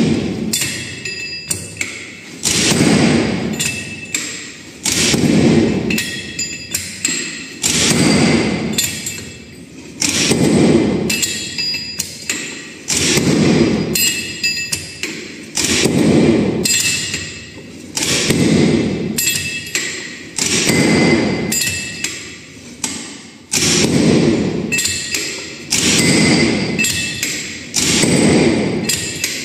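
Aggregate impact testing machine: its heavy steel hammer is raised by hand along the guide rods and dropped onto the aggregate in the steel cup, landing with a heavy metallic thud and a short ring. There are about a dozen blows, one every two and a half seconds or so, with small clanks between as the hammer is lifted. These are the repeated standard blows of an aggregate impact value test.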